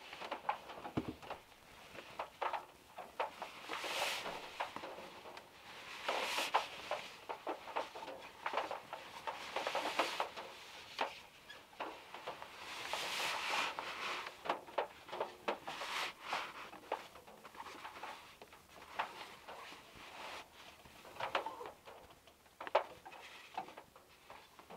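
Raindrops and drips pattering irregularly on a car's metal roof, heard from inside the car, with a few short heavier swells of rain.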